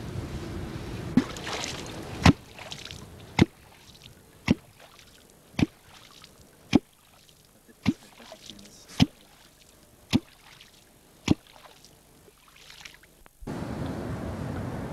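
A catfish clonk struck on the water surface about once a second, making about ten sharp, hollow strikes. Its pulses carry under the boat to lift wels catfish off the bottom. Near the end, a steady noise of wind and water comes in.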